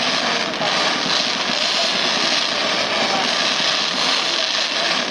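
Fireworks going off as a continuous dense roar, with no single bang standing out.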